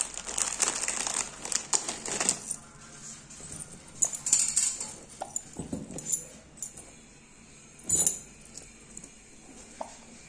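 Plastic packaging crinkling as jewellery is unwrapped, stopping a couple of seconds in. After that come scattered light clicks and rustles as gold chains are handled and laid on a cloth, with one sharper knock about eight seconds in.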